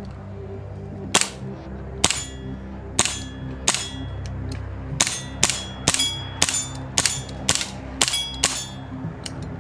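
Army R32 1911-style gas blowback airsoft pistol firing about a dozen shots, each a sharp crack with a brief metallic ring. The first few come about a second apart, then they come quicker, about two a second.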